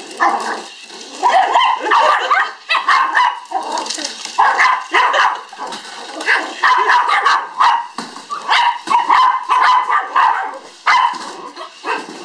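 Yorkshire terriers barking over and over, short barks coming in quick runs at a toy radio-controlled car.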